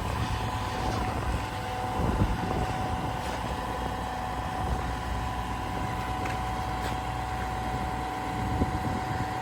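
A Komatsu PC490LC-11 excavator's diesel engine running steadily, with a steady whine held over the low engine note.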